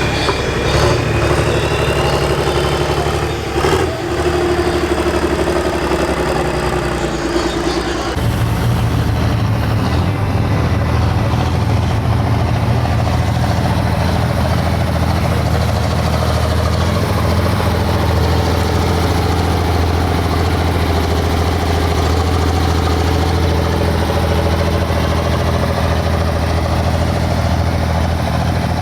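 Pro Farm class pulling tractor's diesel engine running loud and steady, its note changing about eight seconds in.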